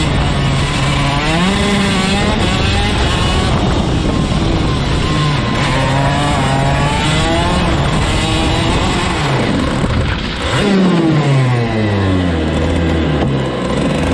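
Racing kart's engine heard from on board at speed, its pitch rising and falling through the corners. A little past ten seconds in it drops steadily for a couple of seconds as the driver comes off the throttle, and it stays low near the end.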